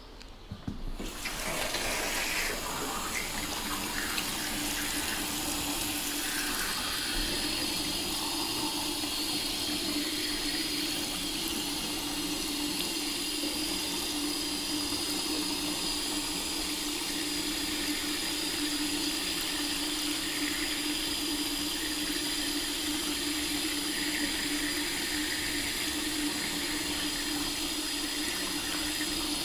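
Water running steadily from a tap into a sink basin, turned on about a second in, with a steady low hum under the rush of water.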